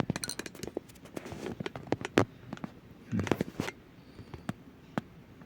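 Light clicks and taps of a plastic fashion doll being handled and stood up on a tabletop, with a brief murmur about three seconds in.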